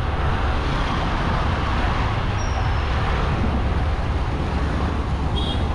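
Motorcycle ride heard from the rider's seat: the engine running steadily under a low rumble of wind on the microphone, with surrounding street traffic. A brief high beep sounds near the end.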